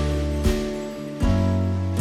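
Instrumental background music: sustained chords over a deep bass, with a new chord struck about every second.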